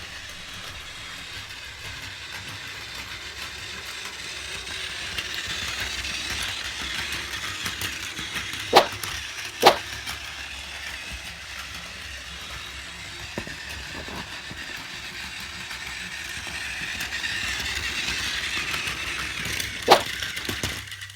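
Battery-powered Plarail 923 Doctor Yellow toy train running on plastic track, its small motor and wheels making a steady whirring rattle that swells twice and fades as it passes near and away. Three sharp clicks come about nine seconds in, a second later, and near the end.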